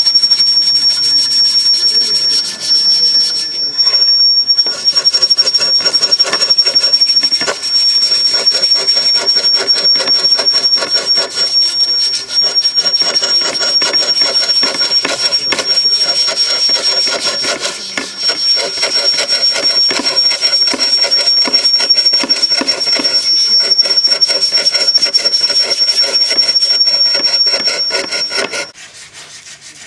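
Hand fretsaw cutting through a wooden board, a continuous rapid rasping of many short saw strokes, with a thin steady high tone over it. It stops abruptly near the end.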